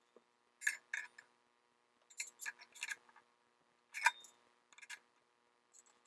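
Small metal hardware, nuts, screws and washers, clicking and clinking as it is handled and fitted. It comes as a string of sharp clicks in small quick groups.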